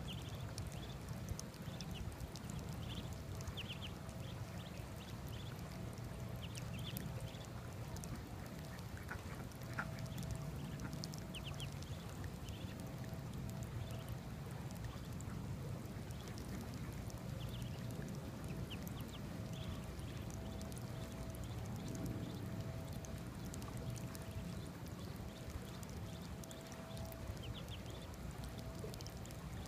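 Muscovy ducklings peeping in many short, high chirps over the steady splash and trickle of water running from a garden hose into a puddle.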